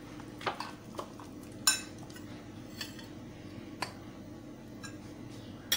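Steel spoon clinking against glass bowls while gram flour and spices are mixed and cornflour is spooned in: several scattered light clinks, the sharpest a little under two seconds in.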